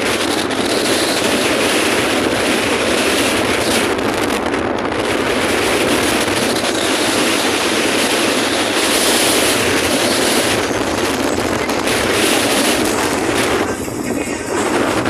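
Steady rushing noise of a moving road vehicle: tyres on the road and wind.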